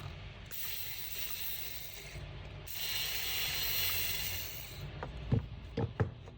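Hand tool work on metal parts: two stretches of quick ratcheting or rasping, then three sharp knocks close together near the end.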